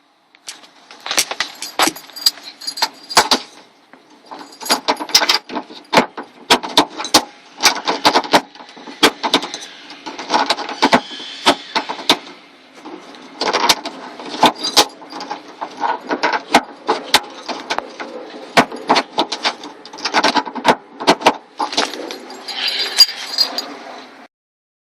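Metal and plastic parts and hand tools clinking and rattling in dense, irregular sharp clicks during hands-on work on a car door, cutting off abruptly near the end.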